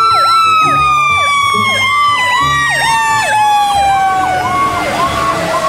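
Fire truck sirens: one long wail slowly falling in pitch, with a second siren sweeping rapidly up and down about twice a second over a low engine rumble.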